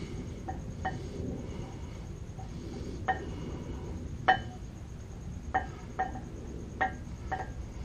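Short, sharp metallic clinks from a hand wrench working on the brake caliper bolts as they are backed out, about eight at irregular intervals, each ringing briefly. A low steady rumble runs underneath.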